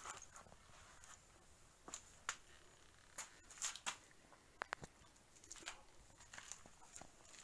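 Near silence broken by faint, irregular scuffs and ticks, about a dozen of them, from footsteps as someone walks around a parked car.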